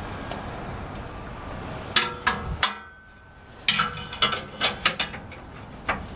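Irregular sharp metal clicks and knocks, a few at a time with a short lull in the middle, as the muffler and its hanger rod are worked to force on a stiff rubber exhaust hanger.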